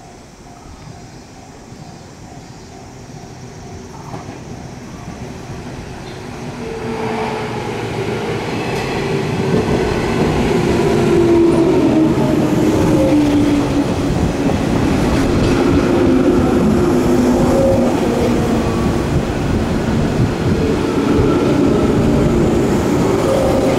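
JR 107-series electric multiple unit, six cars, arriving at a station platform. Its running noise grows from faint to loud as it approaches, and from about seven seconds in a whine falls in pitch as the train slows alongside the platform.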